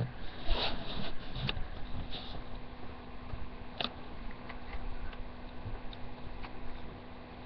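Handling noise from a webcam-equipped computer being carried and moved: scattered clicks, knocks and rustles, busiest in the first couple of seconds with another sharp click about four seconds in, over a faint steady hum.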